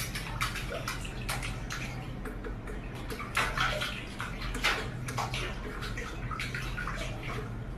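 Water splashing and sloshing in a bathtub, with many irregular splashes over a steady low hum.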